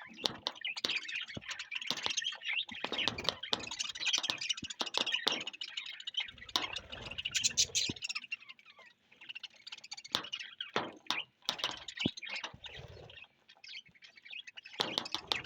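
A colony of budgerigars chattering and chirping together in a busy, overlapping warble, with scattered sharp clicks; the chatter eases briefly about nine seconds in.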